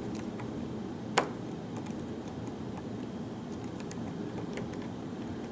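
Faint clicks and light scraping of a lock pick and tension wrench working the pins of a challenge lock, with one sharper click about a second in.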